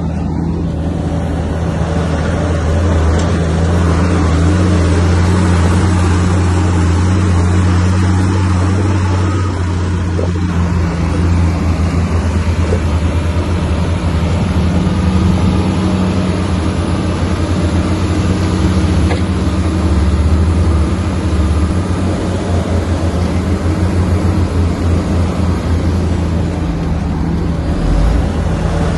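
Heavy diesel engine of a Komatsu bulldozer running steadily as the machine works, with a constant low engine note.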